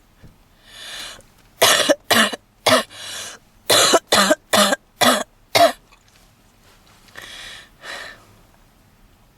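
A woman's smoker's cough: a fit of about eight harsh coughs in two bursts, with a gasping in-breath before and between them. Two softer breaths follow near the end.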